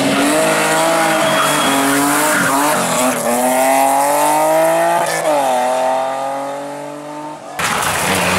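BMW E30 rally car's engine working hard through a corner: its pitch climbs as the car accelerates, drops about five seconds in, then sinks and fades as the car pulls away. Near the end the sound cuts abruptly to another rally car's engine, deeper in tone.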